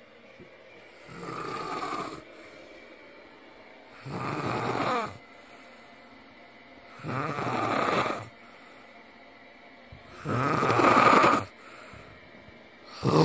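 A sleeping man snoring: four rasping snores about three seconds apart, each louder than the last, with a fifth starting at the end.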